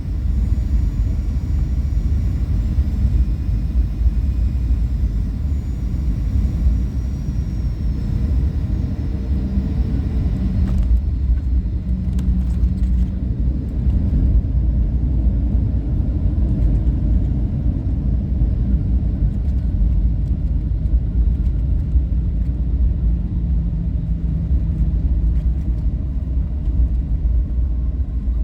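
Cabin noise inside a Boeing 737-800: a steady low rumble of engines and airflow, with a faint high whine that falls in pitch over the first several seconds. A brief knock comes about eleven seconds in, after which the sound is duller.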